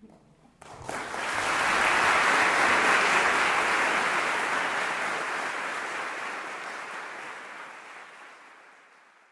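Audience applause that starts about a second in, swells quickly, then slowly dies away near the end.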